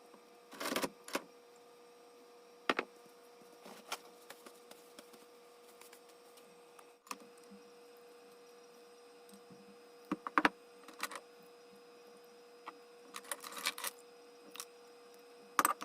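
Scattered light clicks and knocks at irregular intervals, some in quick little clusters, over a faint steady hum.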